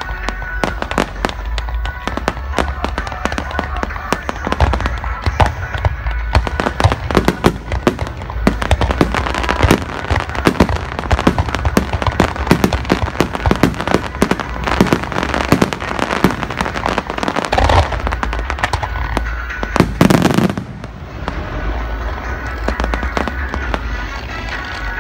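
Dense fireworks barrage: rapid overlapping bangs and crackling over a steady low rumble. The loudest boom comes about twenty seconds in, after which the firing thins out a little.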